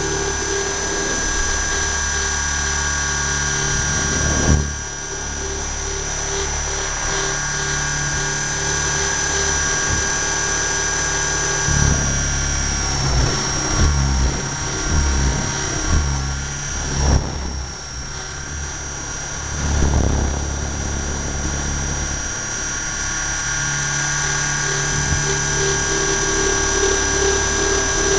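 Align T-Rex 600 model helicopter in flight, heard from a camera mounted on it: a steady high whine from the motor and gears over the throb and rush of the rotor. The sound dips briefly about four seconds in and again past the middle, and swells several times between, as the helicopter manoeuvres.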